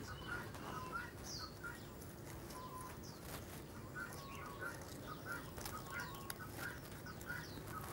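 Faint birds chirping repeatedly, with scattered light crackles and clicks from a freshly lit wood kindling fire under a cooking pot.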